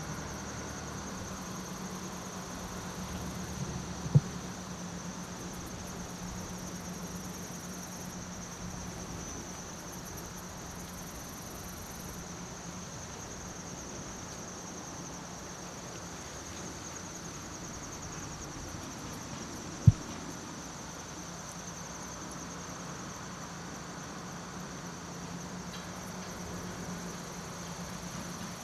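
Insects trilling steadily at a high pitch, over a low steady hum, with two sharp clicks, about 4 and 20 seconds in.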